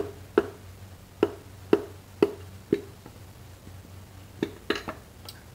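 Light metal taps, each with a short ring: about two a second for the first few seconds, then two more close together near the end, as engine parts are handled during the teardown.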